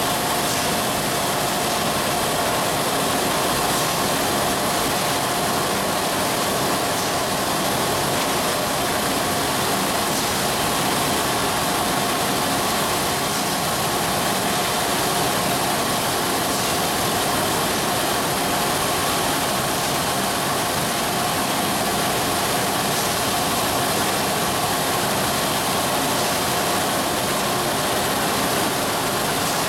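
Automatic OPP labeling machine for round bottles running steadily: a continuous mechanical hum and whir with a steady whine in it.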